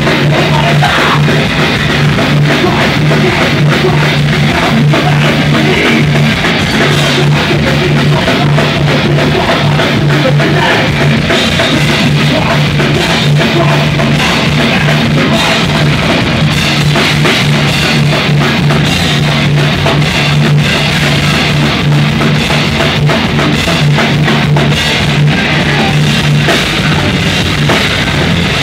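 Thrash metal band playing live and loud: distorted electric guitar, bass guitar and drum kit, with rapid drum hits running through a dense, unbroken wall of sound.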